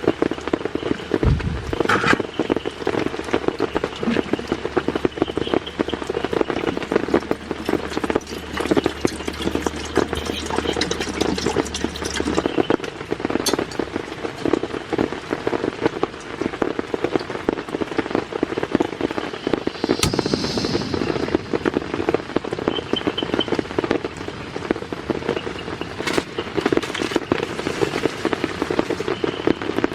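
Heavy rain pattering densely on a surface, a steady crackle of many drops. A faint low hum underneath stops about twelve seconds in.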